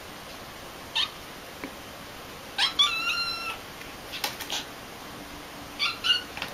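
A kitten mewing in short high-pitched calls: one about a second in, a longer wavering run of mews around three seconds in, and two more near the end, with a few light clicks between.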